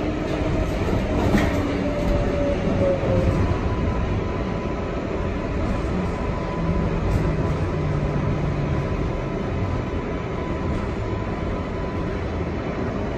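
R142A subway car running on the rails, heard from inside: steady wheel and car running noise, with a faint rising whine about two to three seconds in and a faint steady whine through the middle.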